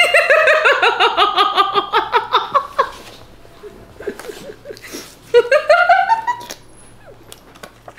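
A woman laughing hard: a long peal of quick 'ha-ha' pulses that slides down in pitch over about three seconds, then, after a pause, a second shorter burst of laughter.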